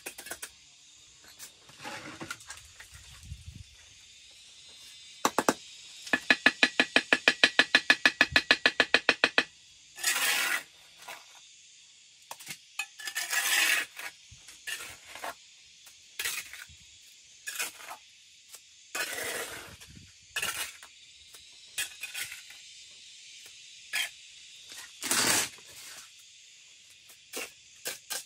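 Intermittent short scrapes and knocks of handwork over a steady high hiss, with a loud rapid rattling run of about nine strokes a second lasting some three seconds.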